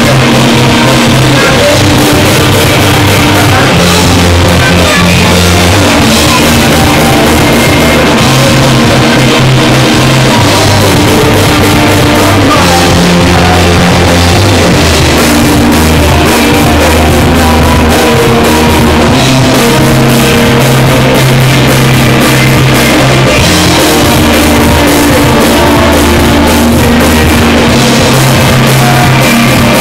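Live rock band playing loud: electric guitars over a drum kit, with a low bass line that shifts note every second or two.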